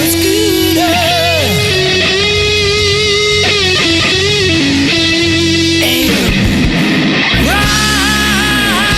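Rock band playing, led by an electric guitar holding bent notes with vibrato; about six seconds in, a guitar pitch slides steeply downward before new sustained wavering notes begin.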